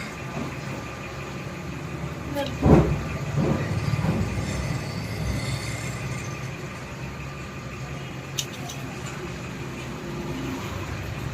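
Steady low engine-like hum of background vehicle noise, with a loud thump about two and a half seconds in and a sharp click later on.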